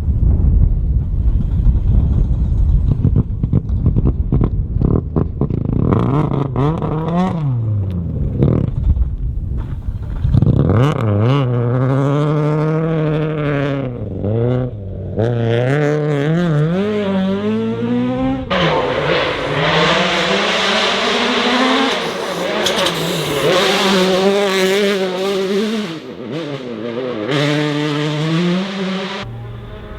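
Rally cars driven flat out on a stage. A rough rumble of engine and tyre noise comes first, then engines revving hard, their pitch rising and falling sharply as the drivers work the throttle and change gear. The sound changes abruptly a couple of times, from one car to the next.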